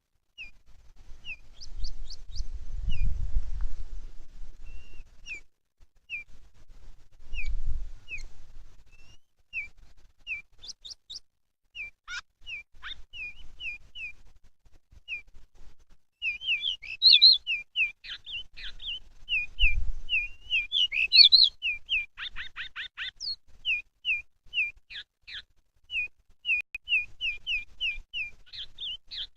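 Pied bushchat (decu) calling: a steady series of short, sharp chirps, one or two a second, breaking into denser twittering song phrases about halfway through. A few dull low thumps come in between.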